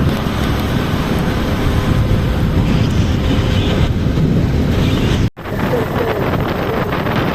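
Wind buffeting the microphone of a moving motorbike, a loud steady rush with road noise underneath. It drops out for an instant about five seconds in.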